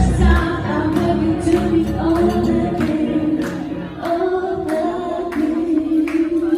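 Live band with a singer near the close of a song: sung notes held over the band, with a steady beat about twice a second, as the bass drops away in the first half.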